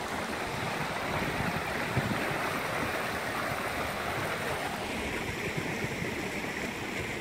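Shallow stream rushing steadily over rocks, carrying the outflow of a pond being drained.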